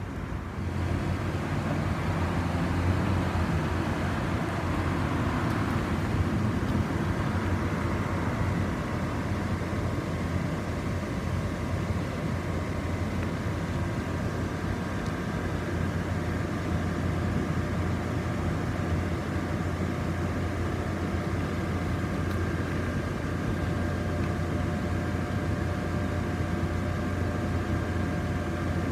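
Electric blower fans of many Christmas inflatables running together: a steady low hum with a few faint, steady whining tones above it, louder from about a second in.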